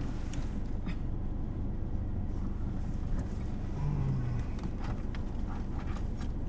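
Light rain pattering on a car's roof and windshield, heard from inside the car as scattered ticks of drops over a steady low rumble. A brief low hum about four seconds in.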